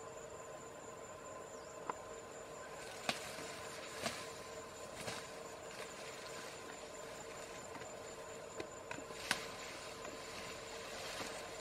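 Sharp crackling snaps of tall grass stems breaking as an Asian elephant tears and eats grass, about six of them spread out, over a steady background hum.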